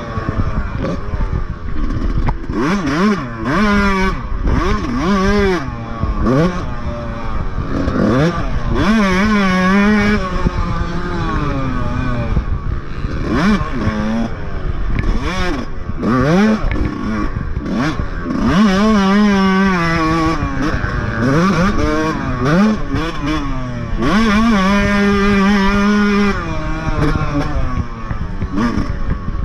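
Motocross dirt bike engine heard close up from the bike itself, revving up and dropping off over and over as it accelerates, shifts and slows, with a few short stretches held at a steady pitch.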